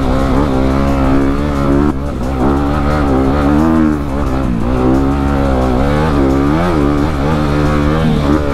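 Honda CRF250RX's 250 cc four-stroke single-cylinder engine running under load while the dirt bike is ridden along a trail. Its pitch rises and falls with the throttle, with brief drops about two and four seconds in.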